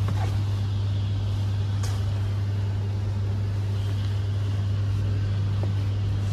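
Fire engine's diesel engine idling, a steady low drone heard inside the cab, with a single click about two seconds in.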